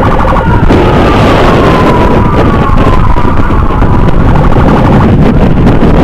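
Emergency siren: a short pulsing burst, then a long tone gliding down in pitch, over heavy wind and road noise on a moving microphone.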